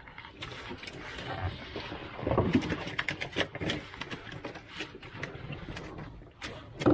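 Live giant freshwater prawns being handled in a plastic cooler: scattered sharp clicks and rattles as they shift and flick against the box and each other. A short low pitched sound stands out a little before the middle.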